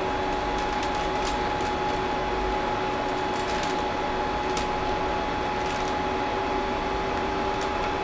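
Creality CR-10S Pro 3D printer running powered up: a steady mechanical hum with a faint steady whine, and a few faint ticks as filament is handled at the extruder.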